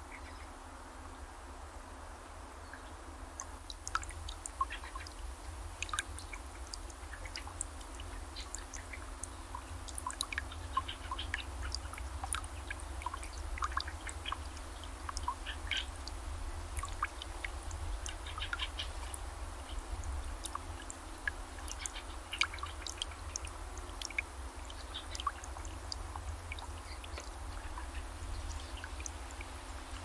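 Small birds pecking and cracking sunflower seeds at a feeder: irregular sharp ticks and clicks that start a few seconds in, over a steady low rumble.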